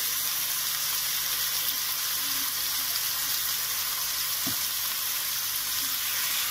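Pork neck steaks frying in a pan with a steady sizzling hiss, with a single light knock of the tongs against the pan about four and a half seconds in.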